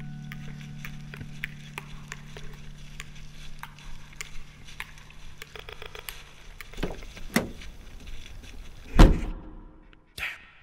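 Footsteps crunching on snow and fallen leaves as scattered clicks, with a few louder knocks, the loudest about nine seconds in. Under them a held music note fades out over the first six seconds.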